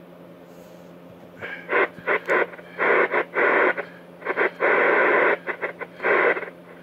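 RCI-2950 ten-meter radio receiving on 27.025 MHz with its squelch set. Over a faint steady hum, bursts of garbled incoming signal and static break the squelch, cutting in and out abruptly several times from about a second and a half in.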